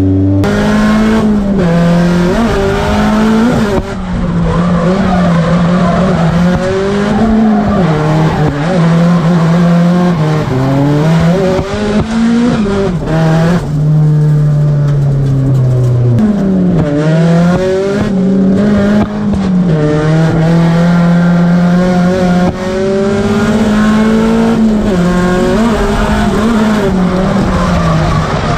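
Drift car's engine held high in the revs, its pitch bobbing up and down continuously with the throttle and dipping sharply a few times, with tyres squealing under wheelspin through the drift.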